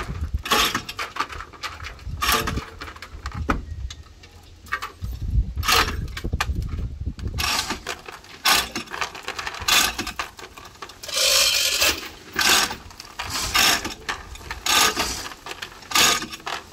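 Irregular knocks and clanks of hand tools working on wood and metal, with a longer rattling clatter partway through.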